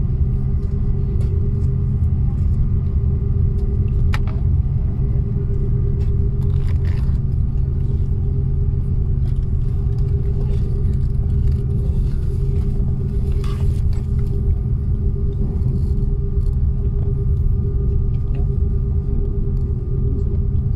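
Airliner cabin noise: a steady low rumble of the engines and airflow heard from inside the cabin, with a constant hum over it and a couple of faint clicks.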